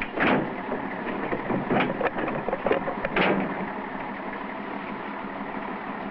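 A motor runs steadily at idle, with a few short clatters over the first three seconds or so.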